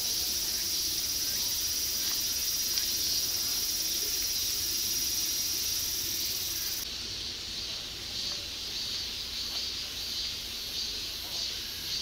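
Summer insect chorus: a steady high-pitched buzz that cuts off abruptly about seven seconds in, leaving a softer insect call pulsing roughly twice a second.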